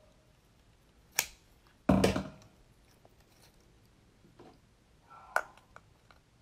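Kitchen scissors snipping through a raw geoduck siphon with a sharp click, then a heavy knock about two seconds in as the shell is set down on the platter; another sharp click comes a little after five seconds.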